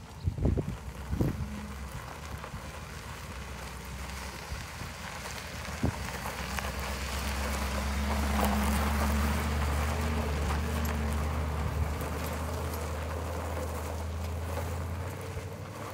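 2004 Chevrolet 3500 service truck's engine running as the truck drives slowly past on gravel, growing louder as it comes near and easing off as it pulls away, with tyres crunching on the gravel. A few sharp knocks near the start.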